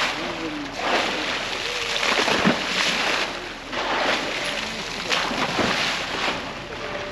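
Seawater splashing and sloshing in a dolphin canal, with irregular splashes every second or so over a steady wash of water noise.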